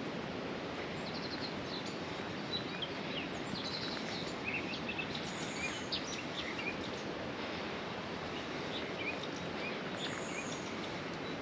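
Woodland ambience: a steady background hiss with many small birds chirping and trilling here and there.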